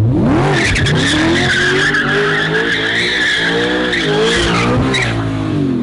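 An all-wheel-drive Lamborghini doing a donut: its tyres squeal loudly as the engine revs up and down, and the squeal stops about five seconds in.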